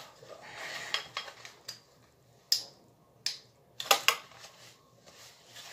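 Rustling of straps and padding, then a string of sharp plastic clicks and clacks as a dirt bike chest protector is unbuckled and handled for taking off. The clacks come singly about two and a half and three and a quarter seconds in, with a quick cluster near four seconds.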